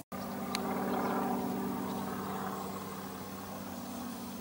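Car engine running steadily, a low even hum that eases slightly in level.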